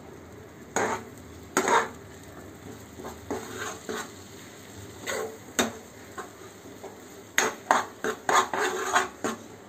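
Stainless-steel slotted spoon stirring and scraping beaten egg and tomato masala in a non-stick kadai, with irregular clinks and scrapes of metal on the pan over a steady low sizzle. The strokes come quicker near the end.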